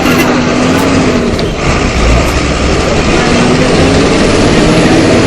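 MWM 6.12 TCAE six-cylinder turbodiesel of a Volksbus 17.210 EOD bus pulling under load. Its note breaks off briefly about a second and a half in, then climbs steadily in pitch as the engine revs up again.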